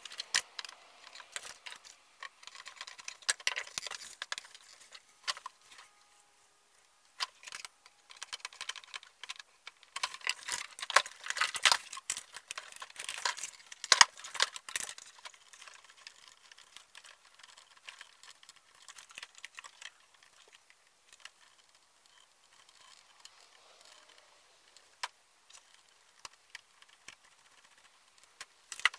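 Plastic trike parts and hand tools being handled on a wooden workbench: scattered clicks, taps and rattles, busiest between about ten and fifteen seconds in, then sparser.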